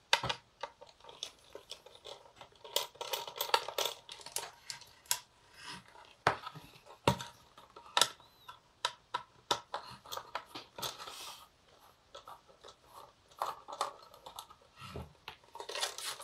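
A hand screwdriver turning screws out of a plastic antenna base. Irregular scratching of the bit in the screw heads, mixed with sharp clicks and knocks as the housing and its cables are handled.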